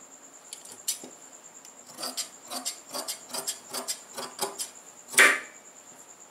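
Large tailor's shears snipping through fabric: a single snip, then a quick run of about a dozen short snips, roughly four a second. About five seconds in comes one louder, longer noise, the loudest moment.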